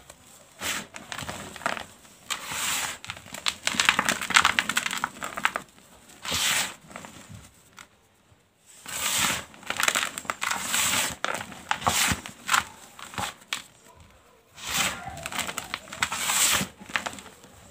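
Fingers squeezing and crushing blue gym chalk powder, a run of short crumbly bursts of noise, with a brief pause about eight seconds in.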